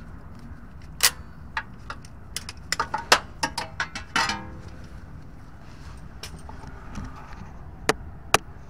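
Sharp metal clicks and clinks as locking pliers are unclamped and lifted off the CV axle's inner joint on a Toyota Sienna. About a dozen come in a scattered run, one of them ringing briefly about four seconds in, with two more near the end.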